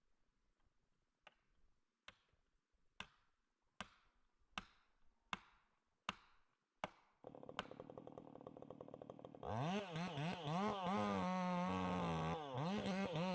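About nine sharp knocks, evenly spaced under a second apart. Then a chainsaw engine starts running about seven seconds in and is revved up loud a couple of seconds later, its pitch wavering up and down with the throttle.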